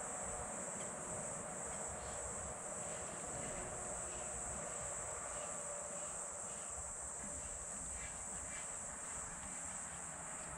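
Steady, high-pitched chorus of insects, with a few faint light clicks now and then.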